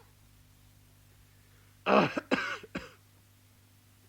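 A man coughing: one short fit of several coughs in quick succession, about a second long, starting near the middle.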